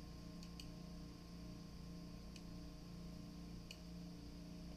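Faint light clicks, four or five spread over a few seconds, from a parallel clamp and a steel 45-degree block being handled and set on a part, over a steady low hum.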